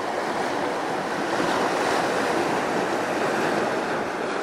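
Sea surf breaking on a rocky shore: a steady rush of waves that swells a little midway.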